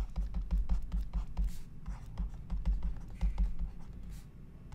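Stylus writing on a drawing tablet: an irregular run of light taps and scratches with dull thuds under them as each letter is drawn.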